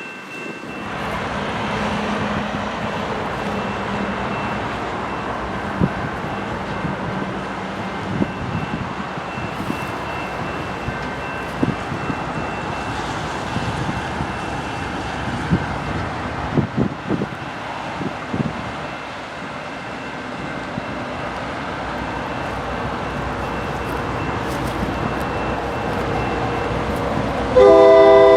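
A steady rumble with scattered clicks, then, just under a second before the end, the loud multi-note chord of a GP9u locomotive's Nathan K3L five-chime horn sounds suddenly.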